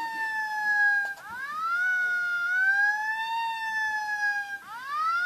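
Police siren wailing. It sweeps up about a second in, holds and slowly falls, then sweeps up again near the end.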